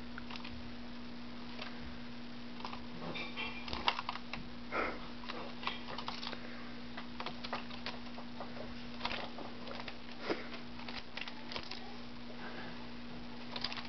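Pet sparrow pecking at a noodle: irregular light taps and clicks, thickest a few seconds in, over a steady low electrical hum.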